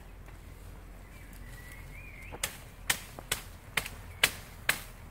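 Folding military shovel hacking at undergrowth: a run of sharp chopping strikes, about two a second, beginning about two and a half seconds in.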